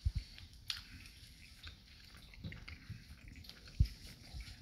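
A person chewing a bite of burrito with the mouth closed: quiet, wet mouth sounds and small clicks, with a few brief low soft thumps, the strongest near the end.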